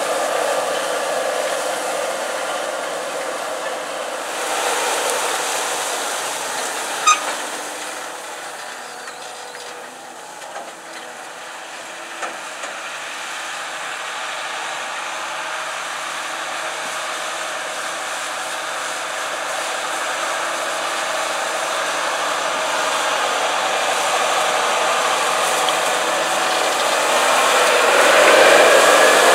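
Case IH Steiger 370 HD tractor's turbocharged six-cylinder diesel working under load as it pulls a disk ripper through corn stalks: a steady whooshing drone. It fades, then grows louder through the second half as the tractor comes close, with the pitch sweeping near the end as it passes. One short, sharp high sound comes about seven seconds in.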